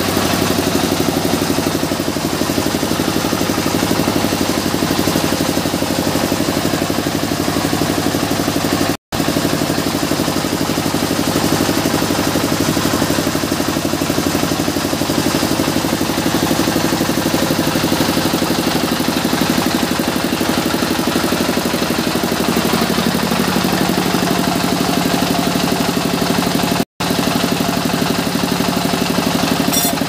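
Sawmill engine running steadily, driving the band saw while a mahogany log is fed to the blade. Its note changes slightly about three-quarters of the way through, and the sound cuts out for an instant twice.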